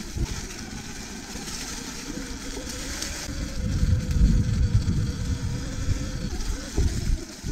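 Riding noise from a Sur-Ron electric off-road bike on a dirt trail: wind buffeting the action camera's microphone over a low rumble from the tyres and frame. It grows louder about three and a half seconds in as the bike speeds up, then eases near the end.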